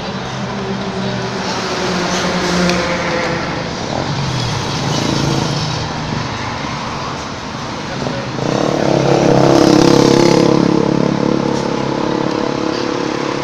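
Road traffic: motor vehicle engines running, with one growing louder for a couple of seconds about eight seconds in.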